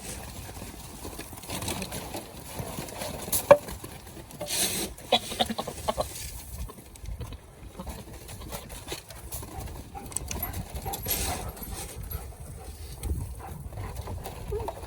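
Handling noises from feeding goats grain: scattered knocks and clatter with a sharp knock about three and a half seconds in, and short rustling bursts near five and eleven seconds.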